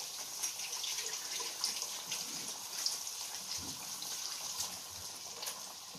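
Kitchen sink faucet running as hands are washed under it, a steady hiss of water with a few small clicks and splashes.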